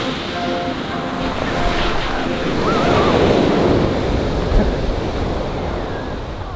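Sea waves washing ashore with wind on the microphone, the rush of surf swelling in the middle and easing off towards the end.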